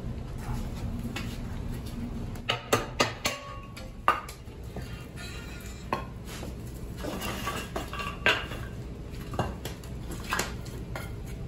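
Iron fittings of a wood-fired brick bread oven clanking as the oven is worked. There is a quick run of sharp clanks about two and a half seconds in, then single knocks every second or two, over the low, steady rush of the wood fire.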